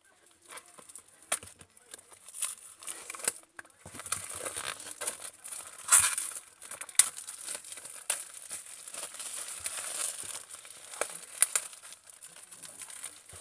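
Packaging being torn open and crinkled by hand, a run of sharp crackles and rustles that gets busier and louder from about four seconds in.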